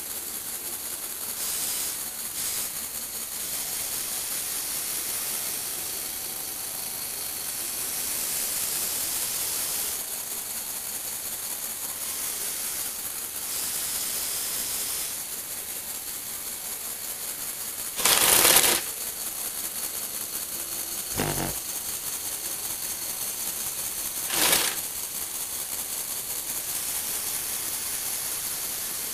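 Small Lego Technic electric motors whirring through plastic gear trains as they tilt and turn a model car on its platform, the whirr shifting in level every few seconds. About two-thirds of the way in, two short louder bursts of rushing noise, with a sharp knock between them.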